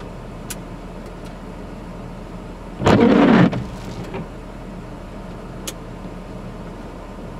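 Pickup truck idling, heard from inside the cab as a steady low hum. There is a short loud noise about three seconds in, and a couple of faint clicks.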